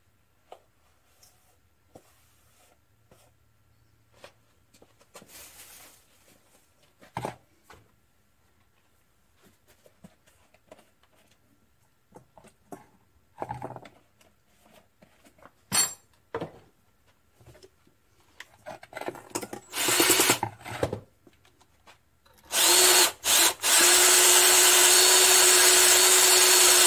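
Craftsman cordless drill spinning a wire brush. It is triggered in two short bursts, then run steadily with a constant whine for about four seconds near the end, scouring paint and rust out of the holes in a governor casting with lacquer thinner. Before that come light knocks, clinks and scraping as parts and tools are handled on the workbench.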